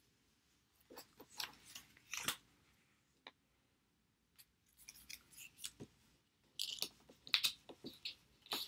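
Construction-paper cutouts being handled and arranged on a tabletop: short, crisp paper rustles and taps, a few about a second or two in and a denser run near the end.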